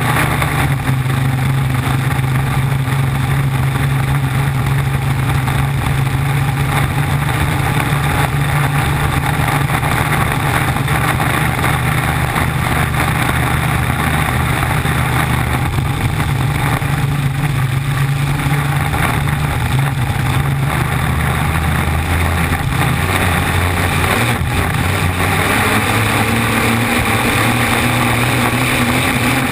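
Flat-bottom V-drive race boat's engine running at speed, a loud steady drone over the rush of water spray from its wake. The engine note shifts slightly higher near the end.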